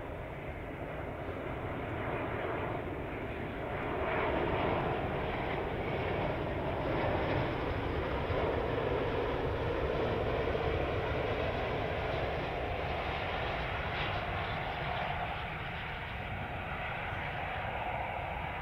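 Jet engines of an Airbus A350 (Rolls-Royce Trent XWB turbofans) on landing approach, a steady rushing roar that grows louder about four seconds in as the airliner passes low, then eases slightly as it touches down.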